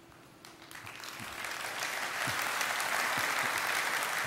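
Audience applause, swelling over the first two seconds into steady clapping.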